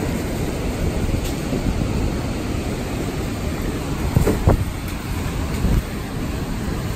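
Hurricane wind and heavy rain, a steady rushing noise with wind buffeting the microphone, and a couple of dull knocks about four seconds in.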